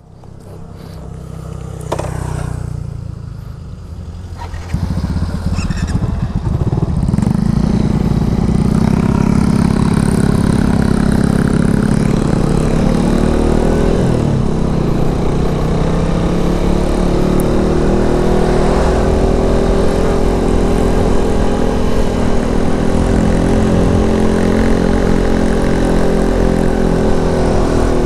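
Suzuki Satria F150 Fi single-cylinder motorcycle engine pulling away from a stop. It is heard from on the bike, rising in pitch and loudness over the first several seconds, then running fairly steadily at road speed, with a short shift in pitch about halfway through.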